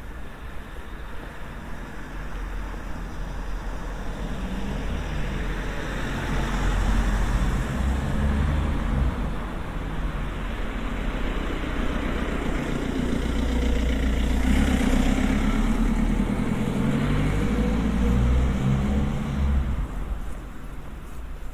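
Cars driving past on a street, engine and tyre noise swelling and fading. The noise peaks about a third of the way in and again past the middle.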